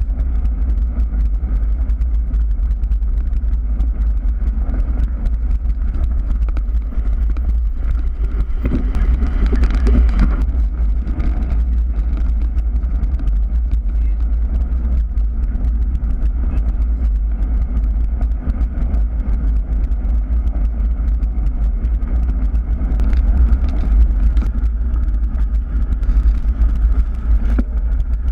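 Steady wind rumble buffeting the microphone of a bike-mounted action camera, with bicycle tyres rolling and crunching over a gravel path.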